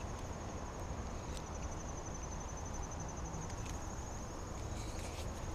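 An insect trilling steadily, a fast, even, high-pitched pulsing, over a low rumble, with a few faint light clicks.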